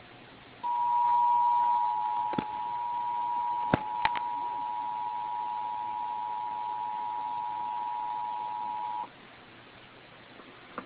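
Emergency Alert System attention signal: two steady tones (853 and 960 Hz) sounding together for about eight seconds, then cutting off abruptly. Three sharp clicks break in a few seconds in.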